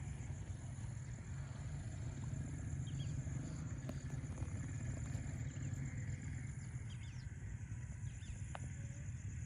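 Riverside evening ambience: a steady low rumble under a continuous high pulsing insect trill, with a few short bird chirps.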